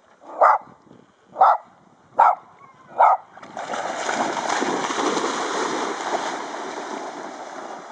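A dog barks four times, less than a second apart. From about halfway, dogs splash loudly as they run and swim through shallow water, and the splashing slowly fades.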